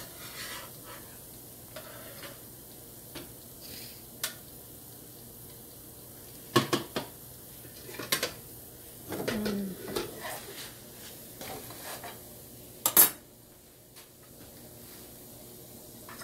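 A spatula scraping and knocking in a nonstick frying pan, with kitchenware clinking against ceramic bowls and plates as cooked kebabs are dished out, over a light sizzle from the pan. The loudest clatter comes near the end.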